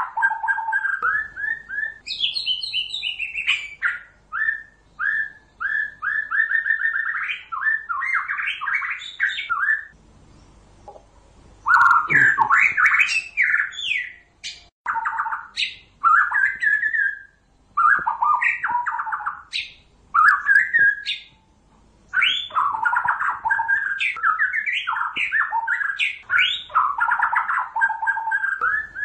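White-rumped shama singing: long runs of varied, rapid whistled notes, broken by short pauses, the longest about ten seconds in and again a little after twenty seconds.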